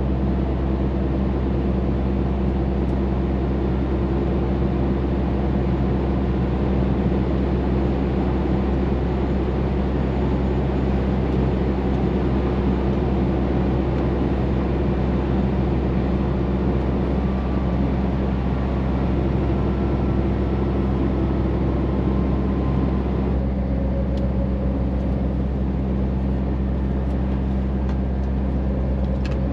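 Scania truck's diesel engine droning steadily under load, heard from inside the cab together with tyre and road noise. About 23 seconds in, the higher hiss drops away and the sound becomes duller while the engine note carries on.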